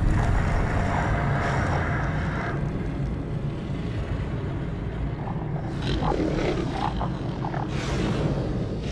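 Film sound design: a steady low rumble, with a hiss for the first two and a half seconds or so and scattered knocks and clicks in the second half.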